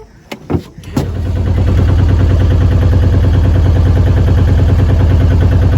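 An engine starts up about a second in, after a couple of knocks, and runs loudly and steadily with a rapid low pulsing.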